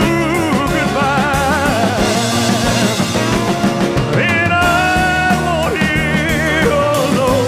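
Music: a slow pop ballad recording, with held melody notes that waver in vibrato over a steady accompaniment.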